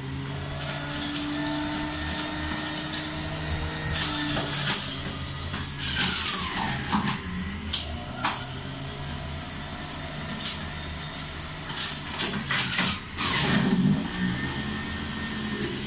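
Electric blender motor running steadily while blending pineapple, celery and the other ingredients. Its pitch sags now and then, and there are several sharp knocks along the way.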